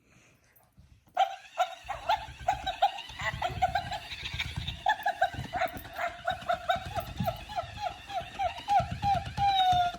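A plush dog toy's squeaker squeaking rapidly, several squeaks a second, as a dog chews and works it, with low thuds from the handling. The squeaks start about a second in, and one longer, slightly falling squeak comes near the end.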